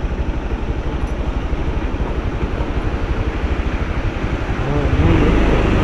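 Motorcycle engine running at low speed on a rough gravel road, with a fast, even pulse and road and wind noise. It gets louder about five seconds in.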